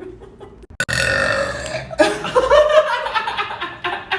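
A girl burping loudly twice in a row: a long belch starts about a second in, and a second long one follows right after it and trails off near the end.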